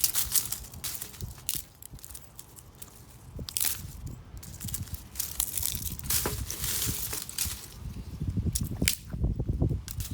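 Wooden branches breaking: a run of sharp snaps and cracks with crackling and crunching between them, and heavier low thuds near the end.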